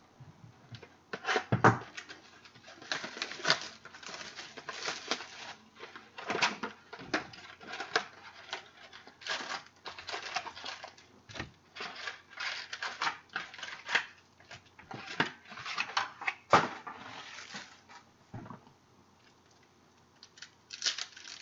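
A cardboard Topps Chrome baseball card box torn open by hand and its foil card packs pulled out: a busy run of tearing, crinkling and rustling with short knocks. It goes quiet for about two seconds near the end.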